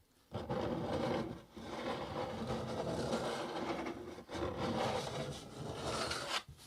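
Fingernails scratching and rubbing across the underside of a cardboard box, held close to the ear: a continuous rough, fuzzy scratching in a few sweeps.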